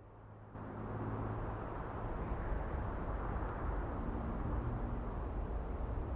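A distant Supermarine Spitfire's V12 piston engine drones steadily under a broad rushing noise. The sound steps up in level about half a second in.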